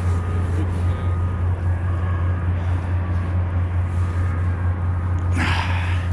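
Steady low engine drone, with a brief rough noise about five and a half seconds in.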